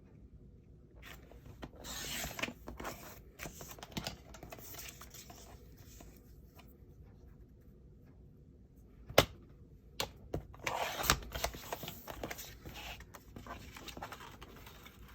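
Paper trimmer cutting paper: two scraping cutting strokes, about two seconds in and again around eleven seconds, with sharp clicks and paper handling between, the loudest click shortly before the second cut.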